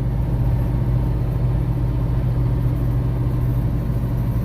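A vehicle engine running steadily, an even low hum that holds the same pitch throughout.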